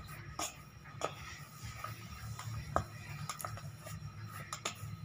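Hands kneading a soft semolina and maida dough: faint, irregular squishes and light taps at a slow uneven pace.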